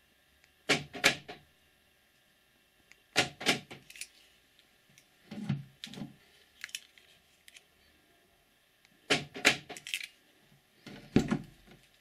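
Seat's central-locking door actuators clunking in quick pairs several times as the newly programmed remote locks and unlocks the car, a sign the remote now works. The door handle is pulled and the latch releases as the door opens.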